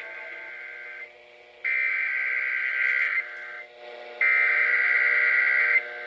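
Emergency Alert System SAME header data bursts playing from a radio's speaker: buzzing tone bursts about a second and a half long with short gaps between. A burst ends about a second in and two more follow. These are the coded header that opens a broadcast EAS test.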